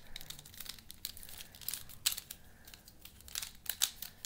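Cheap plastic pyraminx puzzle being turned by hand: a run of irregular plastic clicks and rattles as its layers and tips are twisted.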